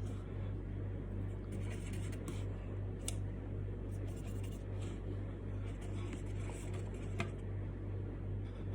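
Light, scattered scratching strokes of drawing or painting small flowers onto a wooden fridge magnet, over a steady low hum.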